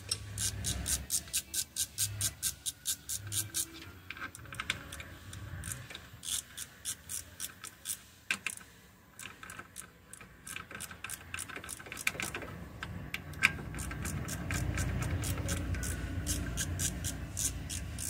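Socket ratchet clicking in quick runs of about five clicks a second, with pauses between runs, as it backs out the six clutch spring bolts on a Bajaj three-wheeler's clutch. A low rumble sits underneath in the last few seconds.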